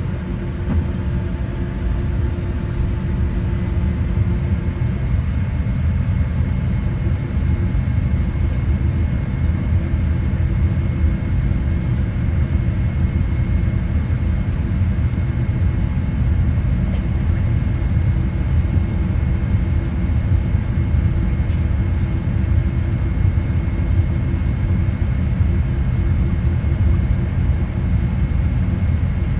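Steady low rumble inside the cabin of a Boeing 787-8 Dreamliner taxiing on the ground, with a faint steady whine on top.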